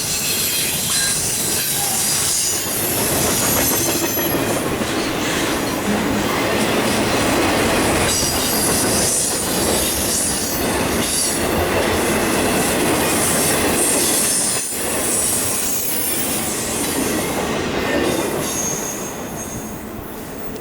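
Intermodal freight train's cars rolling past, wheels clacking over rail joints with high-pitched wheel squeal over the rumble; the sound eases off near the end.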